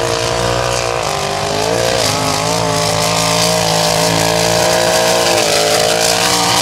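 Mega truck engine running hard at high revs, its pitch dipping briefly about one and two seconds in, then holding steady.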